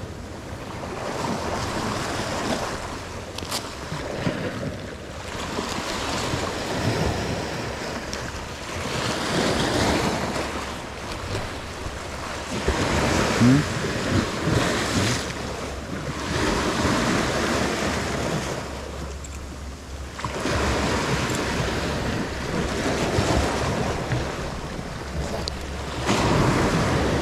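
Sea surf washing against a rocky shore, the swells rising and falling every few seconds, with wind buffeting the microphone.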